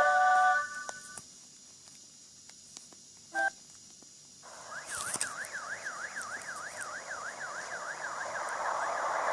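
Sony Ericsson W810i mobile phone playing ringtones through its small speaker. A melodic ringtone ends about a second in. After a short pause a siren-style ringtone starts: a tone sweeping up and down about four times a second over a hiss, growing louder.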